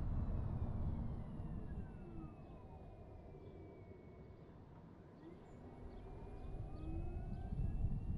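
Car road and wind rumble fading as the car slows to a stop, then building again as it pulls away. A thin whine from the car falls in pitch as it slows and rises again as it speeds up.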